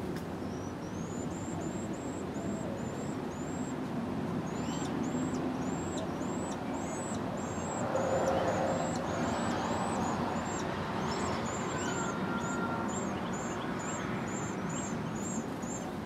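Carolina wren nestlings begging: a long run of thin, high chirps, about two or three a second, over a steady low background rumble. A short rustle about eight seconds in, as the adult wren lands at the nest to feed them.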